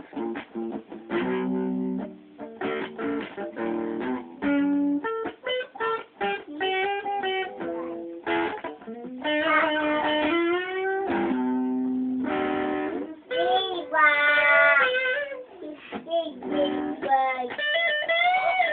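Electric guitar played blues-style: a few strummed chords give way to single-note lead lines with several string bends, the notes gliding up in pitch.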